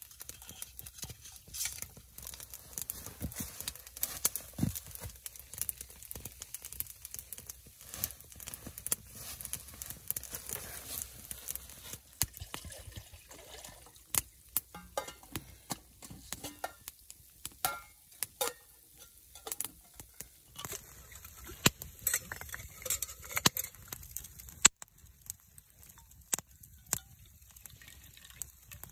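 Wood fire crackling and popping in a small titanium box stove, irregular sharp snaps, with occasional clinks of metal cookware being handled.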